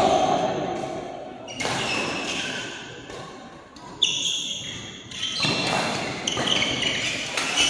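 Badminton rackets striking a shuttlecock in a doubles rally: several sharp smacks a second or two apart, echoing in a large hall, with high squeaks of shoes on the court mat in the second half.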